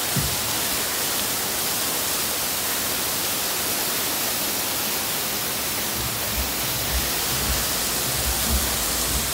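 Water from a man-made waterfall pouring and splashing down rockwork: a steady rushing hiss. From about six seconds in there are a few low bumps on the microphone.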